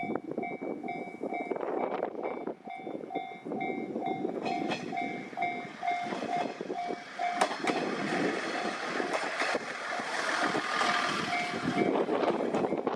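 Japanese level-crossing alarm ringing in a steady, evenly repeated electronic ding, with wind buffeting the microphone. From about four seconds in, a train passes over the crossing: a rising rush of wheel and rail noise with scattered clicks of wheels over rail joints, loudest near the end.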